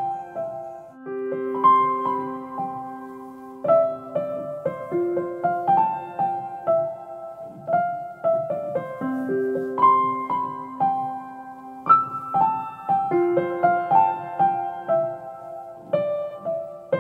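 Background piano music: a slow, gentle melody of single notes over held low notes, each note struck and then fading.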